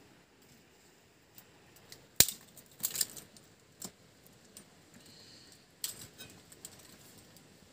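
Scattered sharp metallic clinks and knocks of utensils against cookware or dishes, the loudest about two seconds in, with a few more through the middle.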